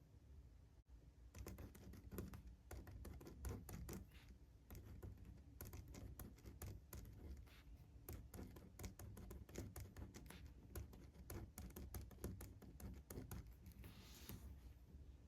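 Faint, rapid, irregular clicking and tapping, with a brief scratchy rustle near the end.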